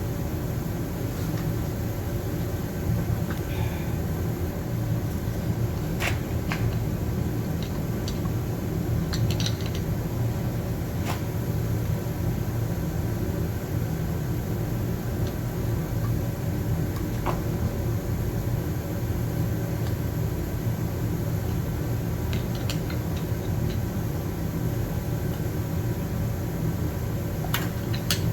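Steady low mechanical hum with a few short, light metallic clicks scattered through it, as of small parts or tools being handled.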